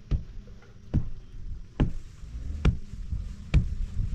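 Five sharp knocks at an even pace, a little more than one a second, like repeated blows of a tool, over a steady low hum.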